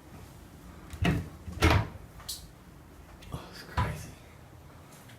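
A handful of knocks and bangs like doors or cupboards being handled: one about a second in, the loudest just after it, and another near four seconds.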